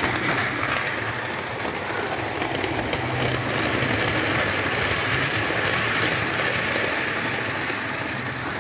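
Model railway trains running on the layout's track: the steady whirr of a Class 67 model diesel locomotive's motor and the rumble of its wheels and coaches on the rails, swelling slightly in the middle as the train passes close.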